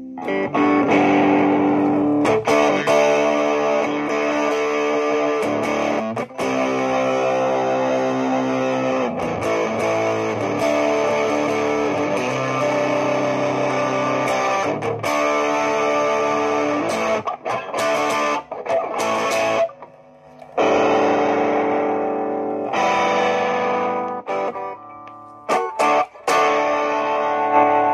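Electric guitar played through a Fender Japan Studio Lead Stereo Chorus combo amp fitted with a new 500k gain pot: ringing chords and notes, with a short break about twenty seconds in and stop-start playing near the end.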